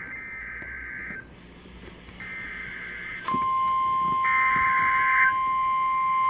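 NOAA Weather Radio Emergency Alert System SAME data bursts: raspy digital bursts, each about a second long and about a second apart, three in a row. About three seconds in, the steady 1050 Hz weather-radio warning alarm tone starts, louder, and holds on. This is the tone that signals a warning is about to be read and switches on alert receivers.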